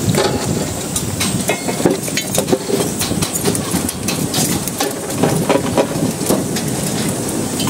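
Construction-site din around steel rebar work: a steady background noise with frequent, irregular clicks and clinks of metal.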